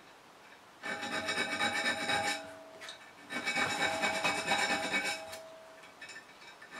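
A small file rasping across the steel spine of a knife blade clamped in a vise, cutting decorative file-work notches. Two bouts of back-and-forth strokes, the first starting about a second in and the second a little after halfway, with a short pause between, and a steady metallic ringing note under the scraping.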